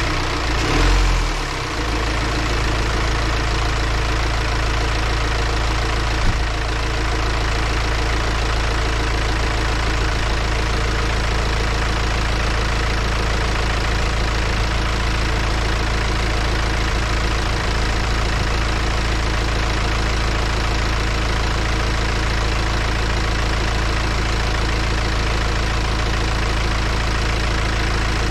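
BMW X1 18d's four-cylinder diesel engine idling steadily, with a short louder low swell about a second in and a brief click about six seconds in.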